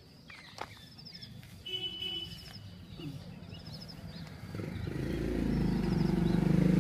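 Birds calling, one repeating a short high chirp about once a second. Partway through, a motor vehicle's engine approaches and grows steadily louder.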